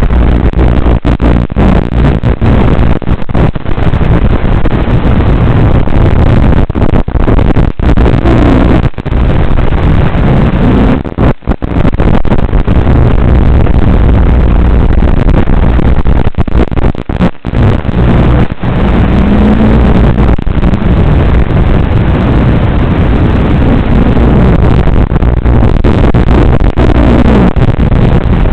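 Loud, steady hiss and rumble from the Blade Torrent 110 quadcopter's FPV audio feed: its motors and propellers with wind on the onboard microphone, the pitch wavering as the throttle changes. Many brief dropouts break it up, the sign of radio interference on the video link.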